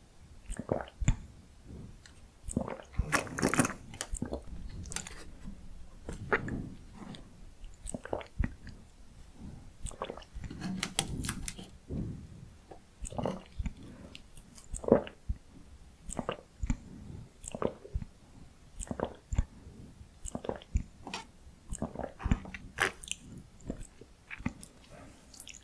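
Close-miked chewing and crunching of salty potato-stick snacks, with crisp, irregular crunches about once a second.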